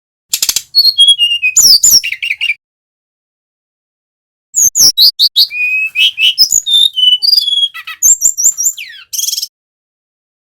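Brown-chested jungle flycatcher singing loudly: a phrase of rapid, varied whistled notes with falling slurs, a pause, then a longer phrase of the same fast, high notes ending in a short harsh, buzzy note.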